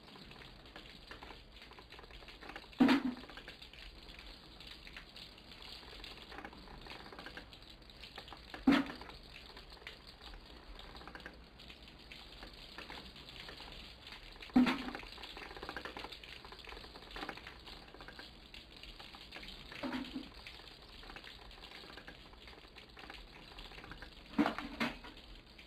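Faint background noise broken by a sharp knock about every five to six seconds, with two knocks close together near the end.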